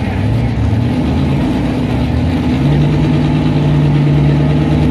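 Pickup truck engine in a stock-class truck pull running hard, its pitch stepping up about two and a half seconds in and then holding steady at high revs.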